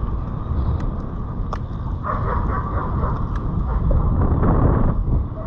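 Wind buffeting a helmet-mounted microphone while mountain-bike tyres rumble over a gravel and dirt trail, with a few sharp clicks from the bike.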